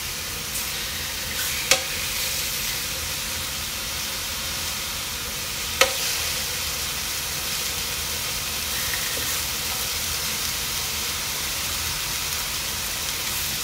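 Mahi-mahi fillets sizzling steadily in hot olive oil in an electric skillet. Two sharp clicks, about two seconds and six seconds in, come as tongs lay more fillets in the pan.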